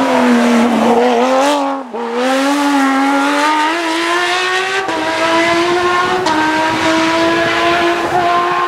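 Porsche 911 GT3 rally car's flat-six engine at full throttle as the car passes and pulls away, the engine note climbing through the gears. There is a sharp lift and dip in pitch about two seconds in, then quicker gear changes around five and six seconds.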